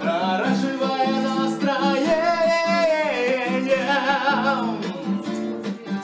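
A man singing a song while strumming an acoustic guitar, with long held notes.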